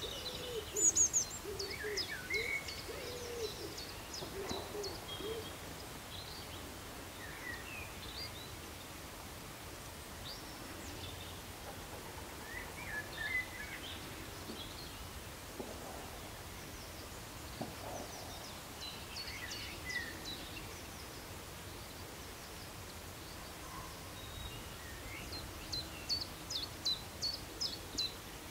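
Birdsong: several birds giving short high chirps and trills. A lower-pitched bird gives a run of repeated low calls over the first five seconds or so, and a quick high trill comes near the end.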